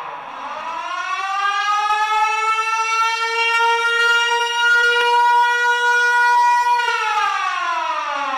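Outdoor civil-defense warning siren winding up from a low pitch to a steady wail, holding for a few seconds, then winding down about seven seconds in.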